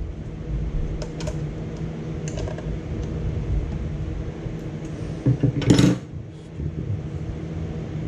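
Metal clinks and taps of hand tools on turbocharger housing bolts as they are worked loose. A few single clicks come early, and a louder cluster of clinks about five to six seconds in. A steady low hum runs underneath.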